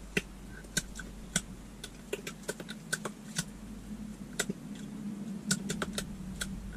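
Scattered soft clicks and taps at uneven intervals, a dozen or more, from a person signing, over a faint steady low hum.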